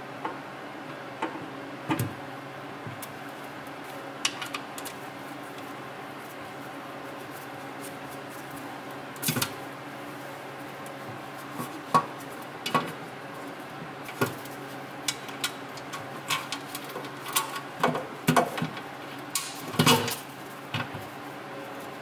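Scattered metallic clinks and knocks as a steel automatic-transmission oil pan is held in place and its pan bolts are fitted, coming more often in the second half. A steady hum runs underneath.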